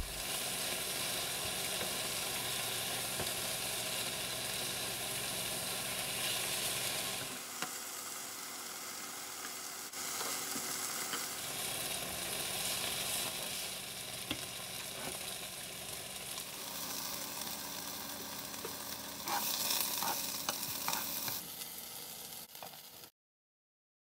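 Beef sizzling as it fries in a nonstick skillet while being stirred, with a few sharp taps of the utensil against the pan. The sizzling cuts off suddenly near the end.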